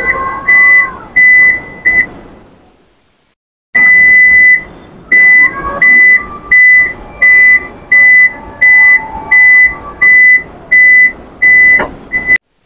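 Toyota Innova Zenix power tailgate's warning buzzer beeping repeatedly at one high pitch, about one beep every 0.7 seconds, each run starting with a longer beep. The beeping breaks off about 3 seconds in, starts again a second later and stops near the end.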